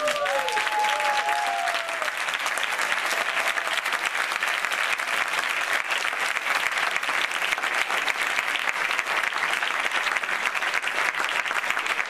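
A cinema audience applauding, a dense steady patter of many hands clapping. A few cheering shouts rise and fall in the first couple of seconds.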